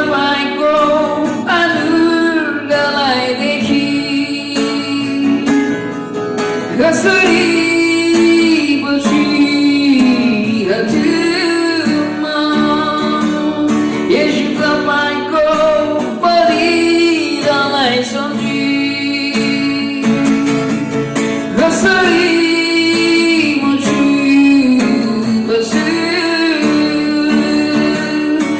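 A worship song: a singer with guitar accompaniment, continuous and loud.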